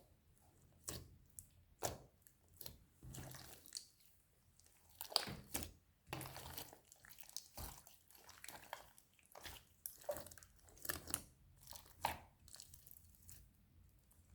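Slime being squished and stretched by hand: irregular sticky clicks, small pops and crackles coming several times a second, with a few louder squelches about five and twelve seconds in.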